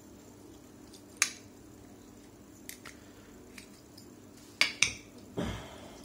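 Plastic housing parts of a reverse-osmosis low pressure switch clicking and tapping together as they are handled and fitted, with two sharp clicks in quick succession near the end followed by a dull thump.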